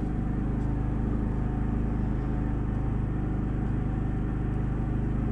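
A steady low machine hum, even in level with a few constant low tones.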